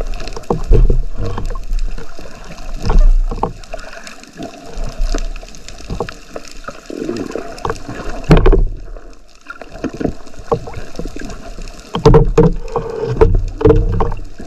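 Underwater sound of water moving around a camera on a speargun near the surface: low rumbling and sloshing with irregular knocks and gurgles, busiest about 12 to 14 seconds in.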